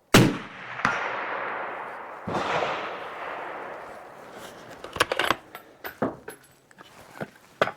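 A Sig Sauer Cross .308 bolt-action rifle fires once, with a long rolling echo, and a faint hit comes back from the steel target under a second later. A second loud bang with its own echo follows about two seconds in. From about five seconds in come several short metallic clicks, the rifle's bolt being worked.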